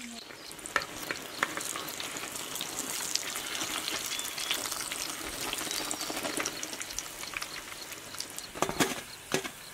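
Eggplant kebab patties sizzling and crackling as they shallow-fry in hot oil, with sharp pops now and then and a few louder clicks near the end.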